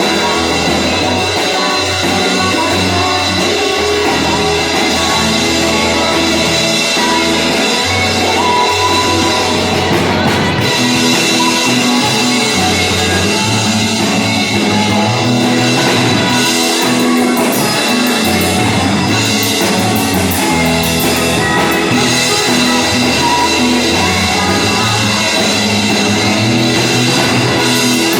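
Rock band playing live and loud, with drum kit and electric guitar.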